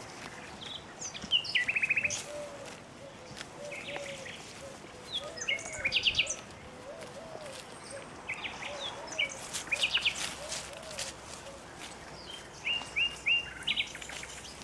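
Songbirds singing in four short bursts of high chirps and quick trills, with a faint run of repeated lower notes underneath for the first half.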